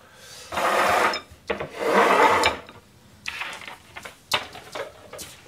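Ceramic bowls scraped across a stainless-steel counter as they are moved: two scrapes of about a second each, then a few light knocks of dishes set down.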